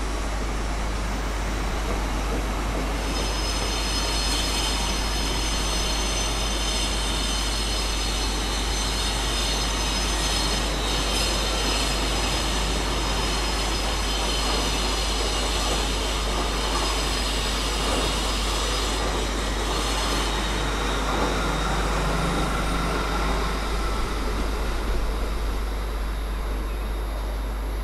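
English Electric Class 55 Deltic diesel locomotive running past at speed with its train, its twin Napier Deltic engines making a heavy, steady noise. High whistling tones ride on top of it and fade out about twenty seconds in.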